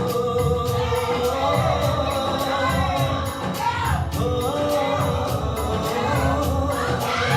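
A song playing, with a steady beat and a voice singing held, sliding notes over it.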